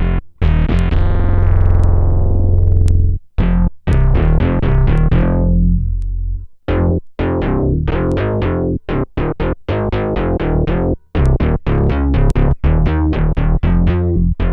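Fender Jazz Bass played through an Electro-Harmonix Bass Mono Synth pedal, recorded direct: a long held synth-bass note whose brightness sweeps down, then several shorter notes that close down the same way. From about halfway through comes a quick run of short, clipped notes.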